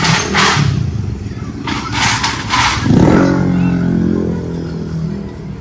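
Street traffic of small motorcycles and motorcycle tricycles passing close. Short hissy rushes of noise come in the first three seconds. About three seconds in, a motorcycle engine passes loudly, its note falling slightly as it goes by and fades.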